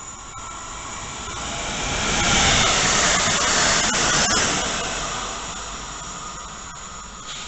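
Train passing through the station: its rolling noise swells, peaks about two to four seconds in with a few sharp clicks from the wheels on the track, then fades away.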